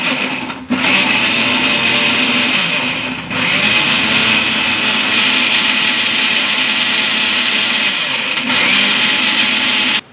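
Electric mixer grinder running, its steel jar grinding tomatoes, onion and spices into a wet masala paste. The motor dips briefly about half a second in and again about three seconds in, then runs on steadily and stops at the very end.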